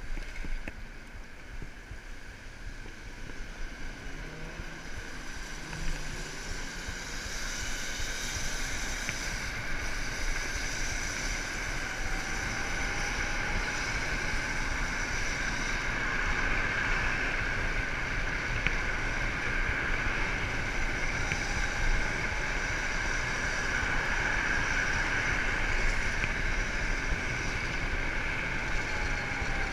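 Wind rushing over the microphone and tyre and traffic noise from a moped riding in city traffic, getting louder over the first several seconds as it picks up speed, with a steady high whine underneath.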